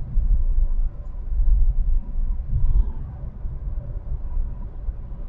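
Low, uneven rumble of a car, heard from inside the cabin.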